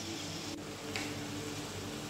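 Faint background music over a soft steady hiss from a simmering pot of shrimp and vegetables, with two faint clicks of the metal spoon against the pot about half a second and a second in.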